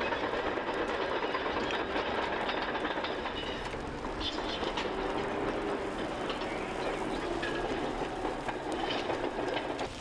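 Burning brush and small conifers crackling over a steady rushing noise, a low-intensity backburn lit by a drip torch.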